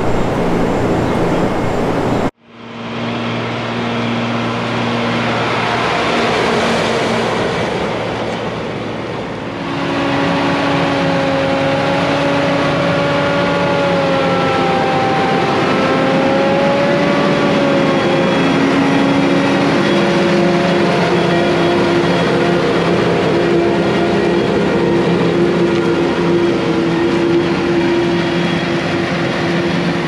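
Farm machinery running with a steady mechanical hum, broken by an abrupt cut about two seconds in. The hum fades back in, and about ten seconds in a whine joins it that wavers slightly in pitch.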